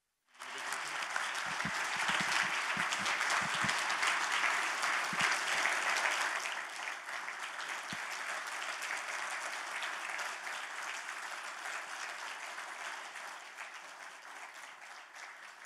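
Audience applauding: the clapping starts abruptly, is loudest in the first few seconds, then gradually dies down.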